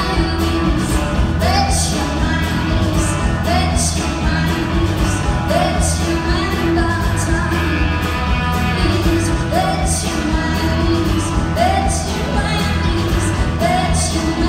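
A rock band playing live: electric guitars and drums, with a woman singing, in the echo of a large hall.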